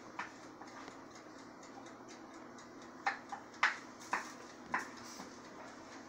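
A utensil tapping and scraping against a frying pan while scrambled eggs are stirred: a few faint ticks in the first second, then five sharper knocks between about three and five seconds in.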